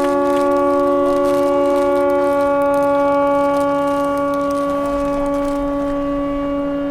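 Ship horns sounding long, steady blasts together, a chord of several pitches; one note drops out about two seconds in while the others hold on.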